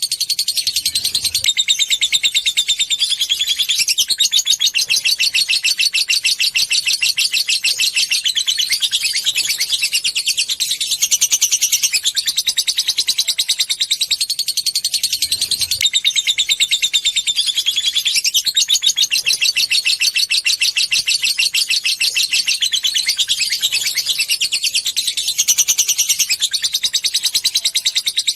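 Lovebird giving a long, unbroken 'ngekek' chatter: a very fast, high-pitched rattling trill that shifts slightly in pitch every few seconds without pausing.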